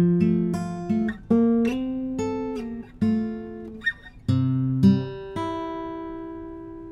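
1950s Martin D-28 dreadnought acoustic guitar with Brazilian rosewood back and sides, played as a run of picked notes and chords. A last chord about five and a half seconds in is left to ring and slowly fade.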